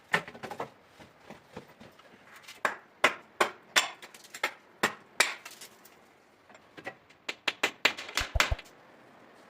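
Irregular sharp knocks and clacks of hard objects being struck or set down, single hits spaced out at first, then a quicker run of several near the end.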